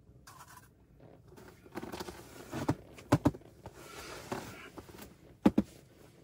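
Movement on a packed-snow floor: rustling and crunching as a person shifts and sits down. Sharp knocks come in pairs, about three seconds in and again about five and a half seconds in.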